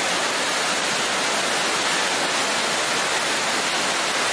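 River whitewater pouring over a steep rocky drop, rushing steadily as one unbroken hiss with no let-up.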